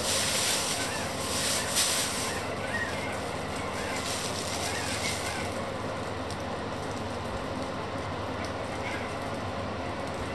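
Thin plastic bag crinkling and rustling as it is picked up and handled, in bursts over the first couple of seconds and again around the middle, over a steady background hiss.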